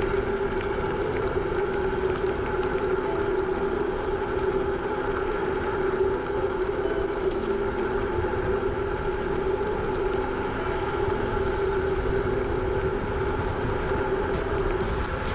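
Bicycle tyres rolling steadily over a gravel road, a continuous even rolling noise mixed with wind on the microphone.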